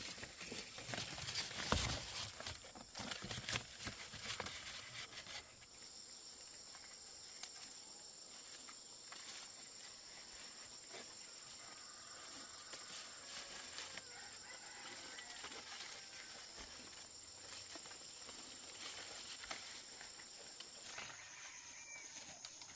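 Rustling and clicking for about the first five seconds, then a steady high insect drone over faint outdoor ambience.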